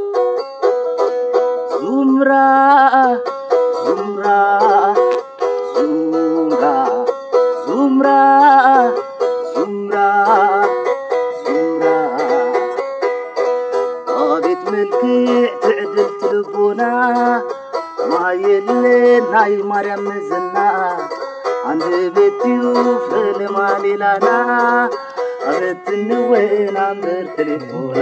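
A krar, the Eritrean lyre, played live, its plucked strings going over a repeating melodic figure. A voice sings long, wavering phrases over it.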